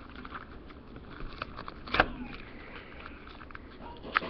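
Plastic and cardboard toy packaging being handled on a wooden table: scattered small crackling clicks, with one sharp knock about two seconds in and two more sharp clicks near the end.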